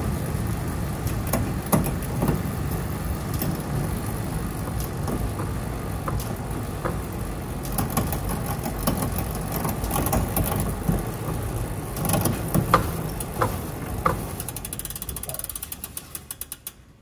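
Snoek velomobile's rear wheel and drivetrain running inside its shell: a steady low rolling rumble with a few sharp clicks. Near the end the rumble fades and the rear hub ticks in a fast run of clicks as the wheel coasts down and stops.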